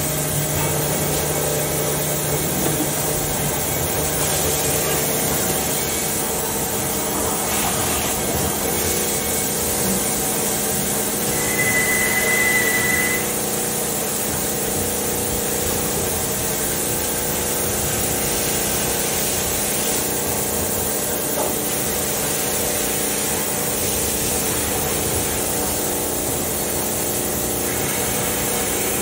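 Kitamura Mycenter HX300iF horizontal machining center running under power: a steady hum and whir of its motors. About 12 seconds in, a brief high whine sounds for a second or so.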